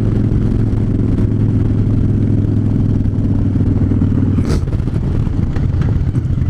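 Harley-Davidson Fat Bob's V-twin engine running steadily while riding at cruising speed. About two-thirds of the way through there is a sharp click, and the even engine note turns rougher and uneven.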